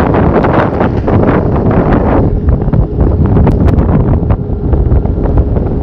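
Heavy wind buffeting the microphone from riding at speed on an electric longboard, over the low rumble of its wheels on the pavement, with scattered small clicks.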